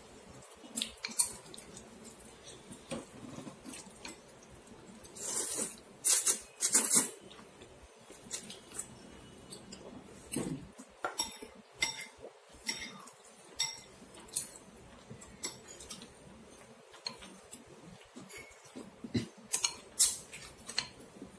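Chopsticks and a ceramic soup spoon clinking and scraping against a ceramic bowl while stirring and lifting noodles in soup. The sharp, irregular clinks are loudest in clusters about five to seven seconds in and again near the end.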